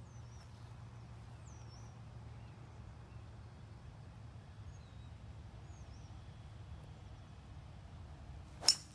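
A choked-down three wood strikes a golf ball off the fairway turf near the end: one sharp crack, by far the loudest sound. Before it, a few faint bird chirps over a low steady outdoor hum.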